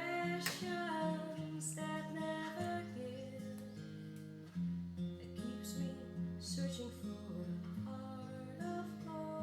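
Background music: plucked acoustic guitar with held chords, perhaps with a voice.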